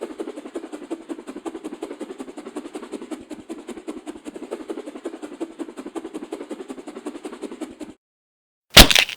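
Punch sound effect as a rapid barrage of hits, about ten a second for nearly eight seconds, then a single loud punch impact near the end.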